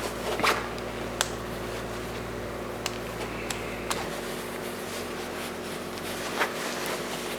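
Scattered light clicks and taps of a twist-lock link V-belt being handled as one of its links is pushed through and worked out, the loudest about half a second and a second in, over a steady low hum.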